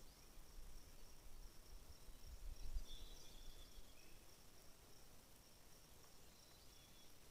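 Faint rural outdoor ambience: a steady high-pitched insect trill, a couple of short bird chirps about three seconds in, and low wind rumble on the microphone near the start and again around two to three seconds.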